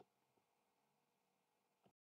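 Near silence with a few faint computer mouse clicks: one at the start, a softer one shortly after, and another near the end.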